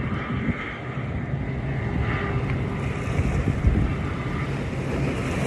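Tugboat's diesel engine droning steadily as it pushes a barge through the canal, with wind buffeting the microphone and choppy water.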